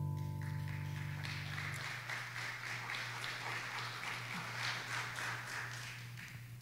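The last piano chord dies away over the first couple of seconds while light applause from a small congregation starts about half a second in and tapers off toward the end.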